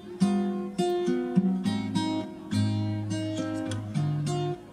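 Background music: acoustic guitar, plucked and strummed, with the chords changing every second or so.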